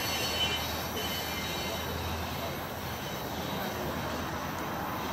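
Loaded CSX coal cars of a freight train rolling away on a curve: a steady rumble of steel wheels on rail, with faint high wheel squeal.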